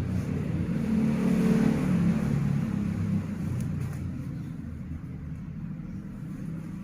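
A motor vehicle's engine running close by, loud for about three seconds and then fading away.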